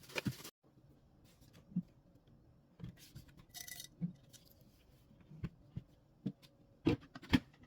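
Faint, scattered light clicks and knocks, a few at a time and a little louder near the end, after the last of a piano music track dies away at the start.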